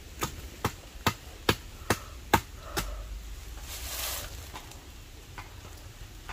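A run of seven sharp strikes, about two and a half a second, growing louder, like chopping. About four seconds in there is a short hiss.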